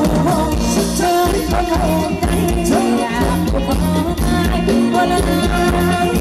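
Live band playing Thai ramwong dance music, with a singer's melody over a steady beat.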